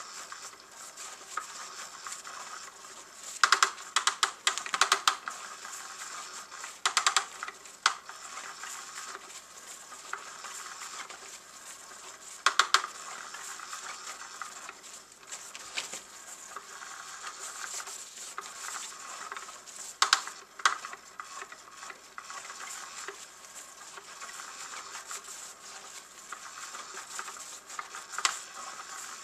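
Undercover Mouse motorized cat toy running: a steady whirr from its motor hub, with the wand scratching and rustling against the fabric skirt and giving irregular louder swishes every few seconds.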